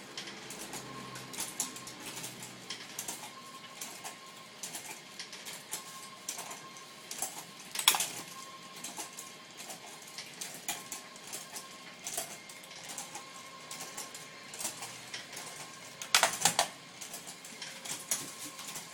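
Irregular light clicks and taps of hand packing, pears and packing materials being handled into boxes, with a louder knock about eight seconds in and a cluster of knocks near the end.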